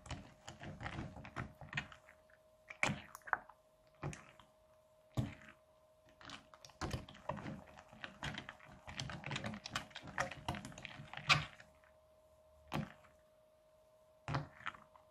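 Crunchy slime full of foam beads being stirred and folded with a silicone spatula in a glass bowl: bursts of crackling, clicking pops as the beads squeeze, with a few sharper single taps in between.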